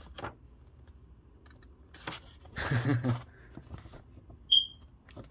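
Quiet rustling of paper as a letter and signed photo are handled, louder for about half a second near the middle, with one short high-pitched chirp near the end.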